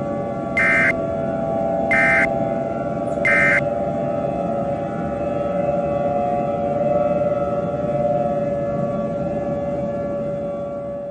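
A steady two-note civil defense siren tone, with three short warbling bursts of Emergency Alert System end-of-message data tones in the first few seconds. These bursts mark the end of the alert.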